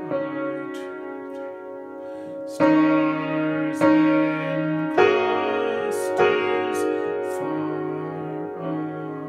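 Upright piano played with both hands, the damper pedal held down so the notes ring on into one another. Four louder chords are struck about a second apart in the middle, with softer notes around them.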